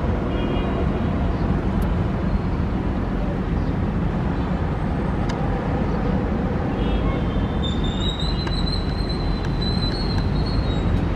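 Boeing 777-300ER's GE90 jet engines giving a steady, loud rumble as the airliner rolls out after landing. A high, wavering whine joins about seven seconds in.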